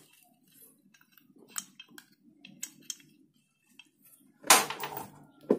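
Light metal clicks and clinks of valve rocker arm parts being handled and fitted into a Suzuki Hayate cylinder head. There is a louder clatter near the end.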